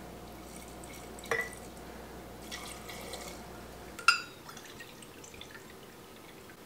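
White wine poured from a glass bottle into a stainless steel measuring cup, with a small click about a second in and a sharp clink of glass on metal just after four seconds, the loudest sound here.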